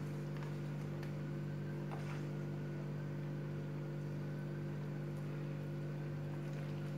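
Steady low electrical hum with a few faint, soft handling sounds as hands press stuffing into a lamb spleen.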